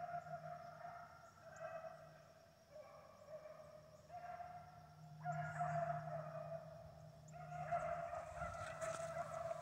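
A pack of beagles baying as they run a rabbit: overlapping long, drawn-out notes that swell and fade.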